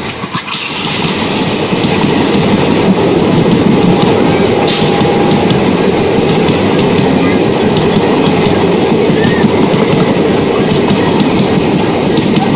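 Indian Railways passenger coaches rushing past at speed on the next track, heard from an open train doorway: a loud, steady roar of wheels on rail and rushing air with clickety-clack.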